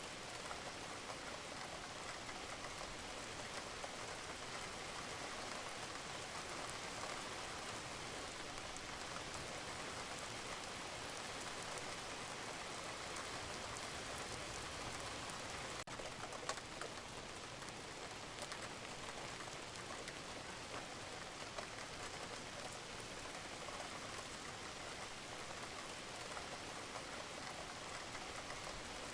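Steady rain pattering on a roof, an even wash of drops with no break, and a single sharp tick about halfway through.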